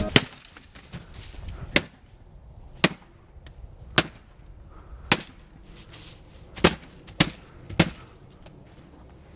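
A series of eight sharp impacts, roughly a second apart, with a quicker run of three in the last third.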